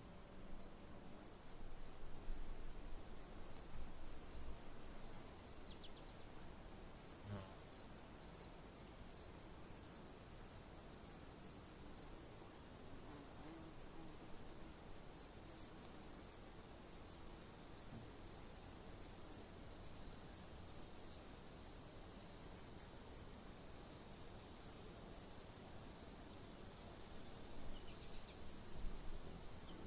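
Night insects, crickets, chirping: a continuous high trill with a second, lower voice of rapid, evenly repeating chirps under it.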